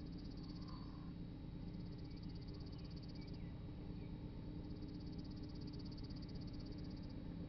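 An animal's high, rapid trill, repeated in three bouts, the longer two about two seconds each, over a low steady hum.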